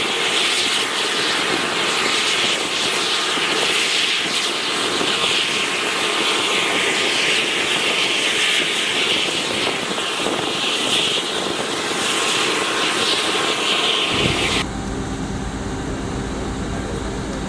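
Steady jet-turbine whine and hiss from a JAS 39 Gripen on the flight line. About fourteen seconds in it cuts off abruptly and gives way to a lower, steady rumble with a hum.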